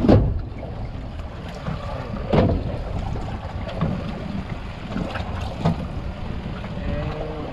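Wind buffeting the microphone over the wash of waves against a drifting boat's hull, a steady low rumble. A sharp knock comes right at the start and a duller thump about two and a half seconds in, with a few fainter knocks after.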